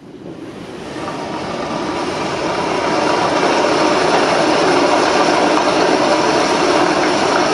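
A steady rushing noise swells up from silence over about three seconds, then holds at an even level. It is the intro of a pop song's backing track played over the venue's speakers.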